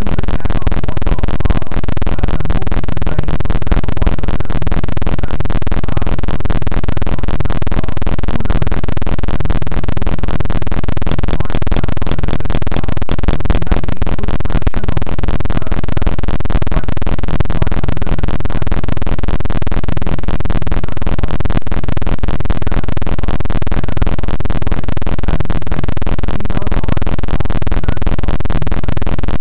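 Loud, steady, harsh distorted noise that fills the whole sound at a constant level, typical of a broken or corrupted video-call audio stream.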